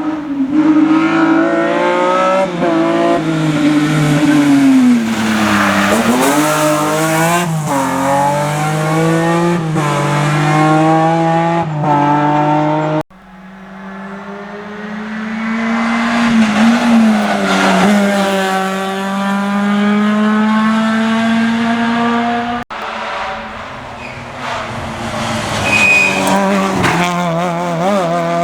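Rally car engines revving hard, the pitch climbing and dropping through gear changes and lifts, in three separate passes joined by abrupt breaks.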